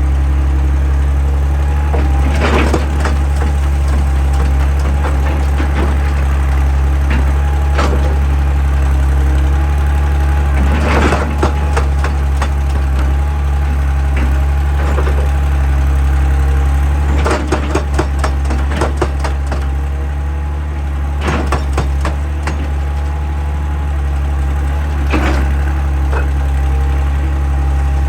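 Excavator's diesel engine running steadily with a deep drone, broken now and then by sharp knocks and clanks, including a short run of several in a row about two-thirds of the way through.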